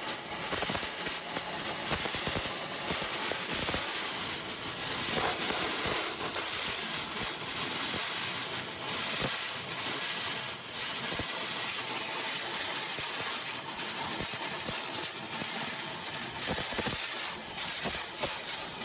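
Abrasive blast nozzle firing grit at a corroded cooling-tower basin: a loud, steady hiss of compressed air and abrasive, with scattered ticks. The blast is stripping the failed, blistered coating and rust to prepare the surface for recoating.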